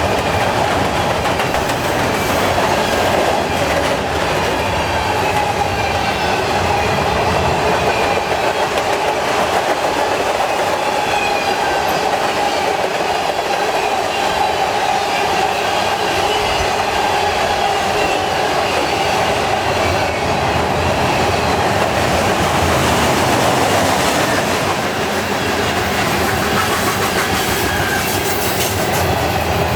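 Freight cars of a long CN freight train rolling steadily past: a continuous rumble of steel wheels on rail, with clickety-clack over the rail joints and a faint wavering squeal from the wheels.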